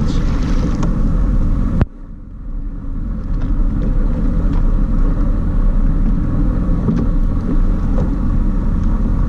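Personal watercraft's engine running with a steady low rumble, heard from the hull. About two seconds in there is a click, the rumble drops off sharply, then it builds back up over a second or so.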